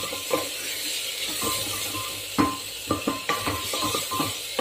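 Chopped tomato, onion and green chilli sizzling in hot oil while a spoon stirs them and knocks against the metal pot, giving a steady hiss with irregular clinks, the loudest about two and a half seconds in.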